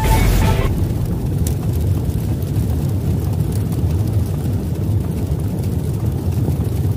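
Animated-outro sound effect: a short whoosh at the start gives way to a steady deep rumble.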